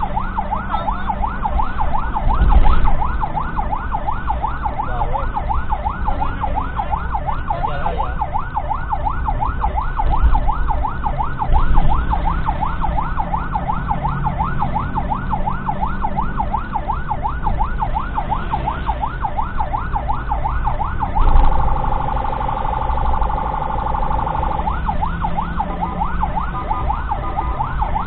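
Ambulance siren on a fast yelp, rising and falling several times a second, heard from the ambulance's own cab over its engine. A little past two-thirds through it switches for about three seconds to a steadier, rapidly pulsing tone, then goes back to the yelp; a few low thuds stand out along the way.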